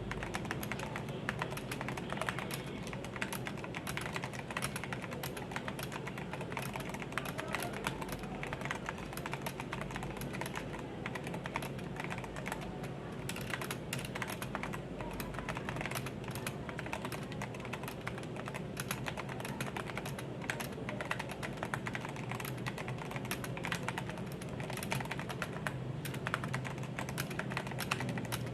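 Fast, continuous typing on a Leaven K620 budget mechanical keyboard fitted with XDA-profile PBT keycaps: a dense stream of keystroke clacks with no pauses.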